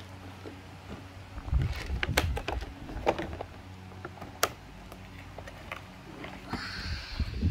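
Plastic blister packaging and cardboard box of a toy truck being handled: scattered crackles and clicks, a sharp click about four and a half seconds in, and a brief crinkling rustle near the end.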